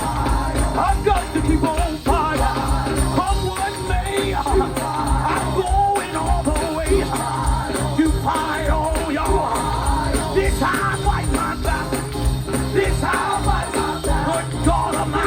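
Live gospel music: several voices singing over a band with bass and a steady beat.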